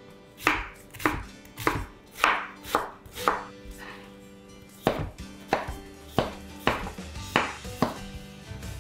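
Ceramic kitchen knife slicing through onion and then potato and striking a wooden cutting board, about two cuts a second, with a short pause about halfway. Quiet background music underneath.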